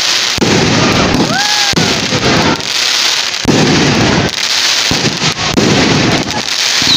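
Aerial fireworks bursting in a rapid barrage, a loud bang every second or so.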